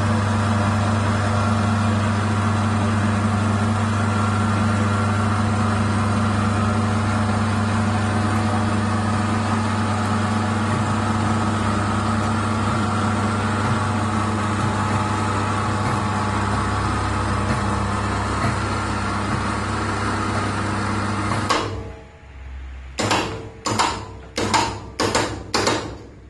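Electric ceiling hoist motor running with a steady hum as it lowers a hard top, stopping about 21 seconds in. It then runs in six short bursts near the end as the load is inched down to the floor.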